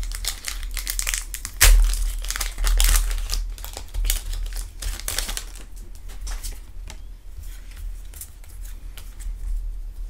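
Foil Pokémon booster pack wrapper crinkling as it is torn open: dense crackling for about the first six seconds, loudest near the start, then quieter, sparser rustling as the cards are handled.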